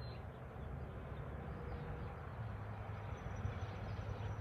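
Steady outdoor background noise with a low hum underneath and no distinct event.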